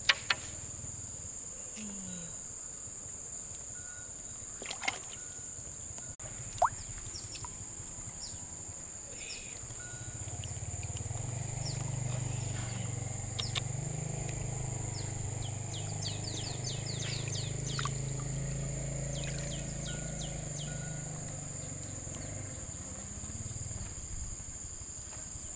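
Rural outdoor ambience: a steady high-pitched insect buzz with scattered short bird chirps. There are a few sharp knocks in the first seven seconds, and a low hum comes in about ten seconds in.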